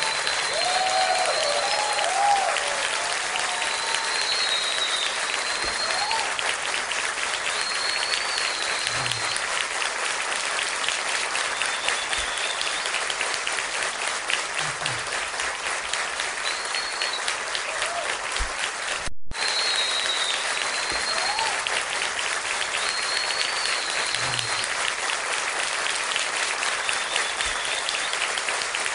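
Crowd applauding steadily, with a few high whistles over the clapping. The applause cuts out for a moment about two-thirds through, then carries on.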